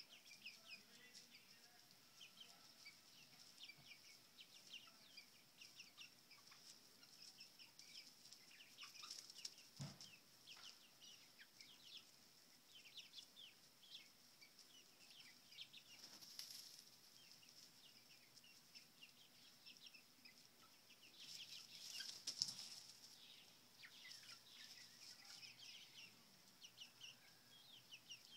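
Faint peeping and cheeping from seven-week-old chickens: many short, high chirps throughout. A few louder wing flaps come about a third of the way in, past the middle and about three quarters through, over a steady high-pitched hum.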